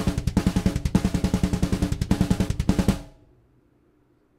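Raw studio drum-kit multitracks from a metalcore session, drums alone, playing back. Rapid, even kick-drum strokes run under snare and cymbals, then cut off about three seconds in as playback stops.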